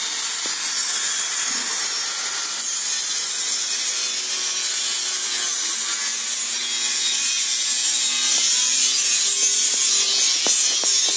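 A power tool abrading steel, cleaning up the metal of an engine stand frame: a loud, steady, harsh hiss with no stroke rhythm. A few sharp clicks near the end.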